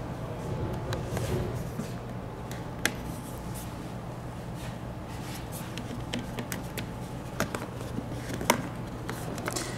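Hands handling the plastic side trim of a suspension seat's backrest: scattered sharp clicks and light knocks, one louder click about three seconds in and several more near the end, over a steady low hum.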